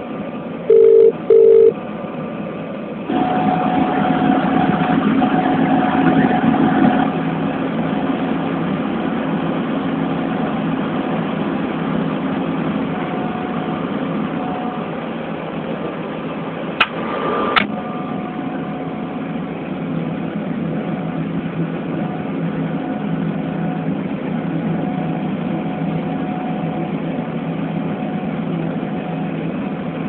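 John Deere C670 combine harvester running steadily while harvesting wheat, heard from inside the cab as a constant engine and machinery drone. Two short loud beeps come about a second in, the drone grows louder for a few seconds from about 3 s, and two sharp clicks sound around the middle.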